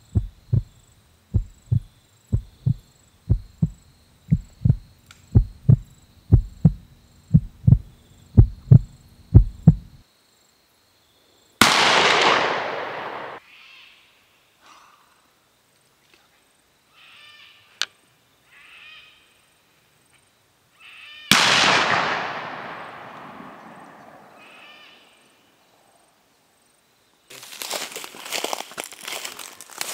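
A thudding heartbeat, about one and a half beats a second, stops abruptly. Two rifle shots follow about ten seconds apart, each a sharp crack that echoes away over about two seconds. Near the end come footsteps crunching through dry leaf litter and sticks.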